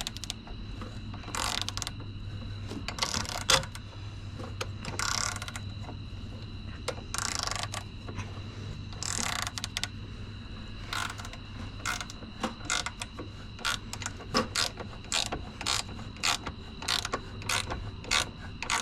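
Hand ratchet wrench clicking in short runs while bolts are turned on a golf cart starter/generator, with scattered tool clicks and knocks, over a steady low hum.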